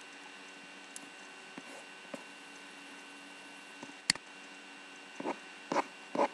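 Steady electrical hum with faint hiss, a few faint clicks, then a sharp computer mouse click about four seconds in, followed by three short soft sounds near the end.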